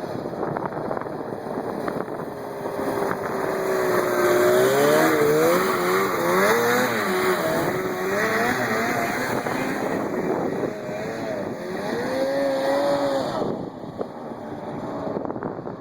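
1980 Ski-Doo Blizzard 9500 Plus snowmobile's two-stroke engine running, its pitch rising a few seconds in and going up and down as it revs, then dropping away near the end.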